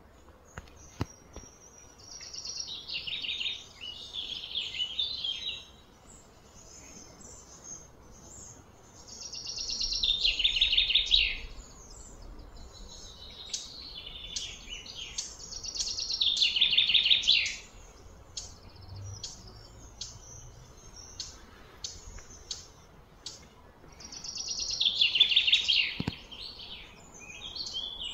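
A bird singing: a fast trilled phrase that falls in pitch over a second or two, given four times, with shorter high chirps in between.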